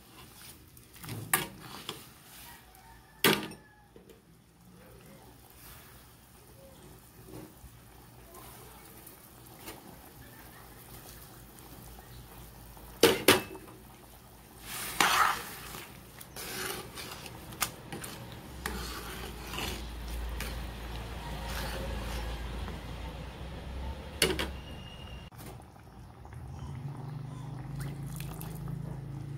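A spatula stirring a pot of mung bean soup, with several sharp knocks and clinks against the metal pot.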